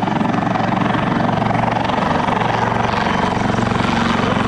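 AgustaWestland AW159 Wildcat helicopter flying past, its twin turboshaft engines and rotor blades making a steady, rhythmic beat.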